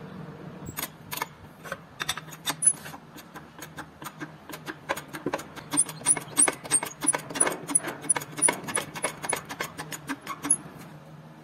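Sharp metallic clicks from the old car jack's steel tube turning on its rusty threaded housing as it is worked loose. The clicks come a few a second, growing denser and louder about halfway through, over a steady low hum.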